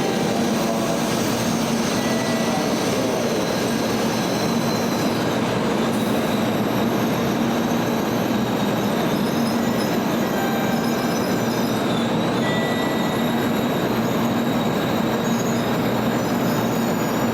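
Tokaido Shinkansen train running alongside the platform at low speed: a steady, even running noise with a low hum and brief thin high tones that come and go.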